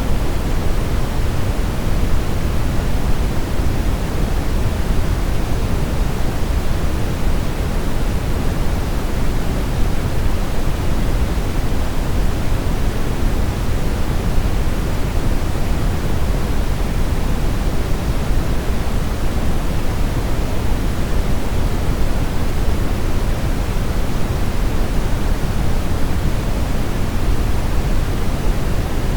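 Steady brown noise: an even, unchanging hiss weighted heavily toward deep low frequencies, like a low roar.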